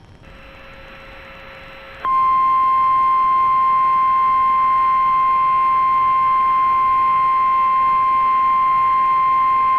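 NOAA Weather Radio warning alarm tone: a loud, steady single-pitched tone near 1050 Hz that cuts in abruptly about two seconds in and holds. It signals that a warning broadcast, here a tornado warning, is about to follow. Before it there is only faint radio static.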